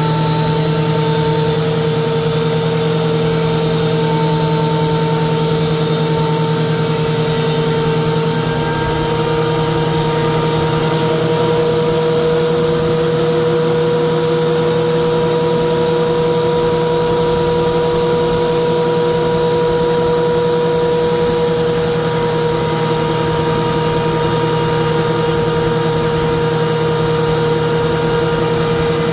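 Harbor Freight Hercules electric wood planer running steadily with a constant motor whine, its pitch rising slightly about eight seconds in.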